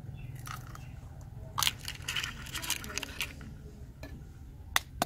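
Eggshells cracked and broken apart by hand: sharp cracks and crunches, the loudest about a second and a half in, with smaller clicks scattered through, over a steady low hum.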